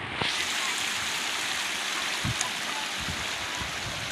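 Heavy rain falling: a steady, dense hiss of water that comes in abruptly just after the start.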